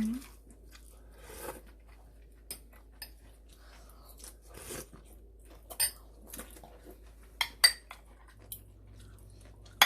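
Cutlery clinking against bowls and dishes at a meal table: scattered sharp clinks with a few softer scraping sounds, the loudest clinks near the end.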